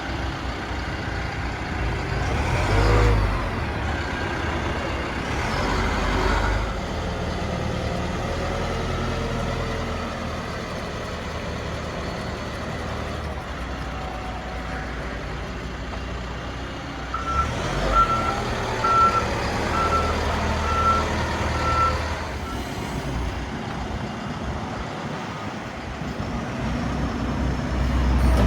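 Lonking 84C backhoe loader's Perkins diesel engine running, its revs rising briefly twice early on. About seventeen seconds in, its reversing alarm beeps steadily for about five seconds.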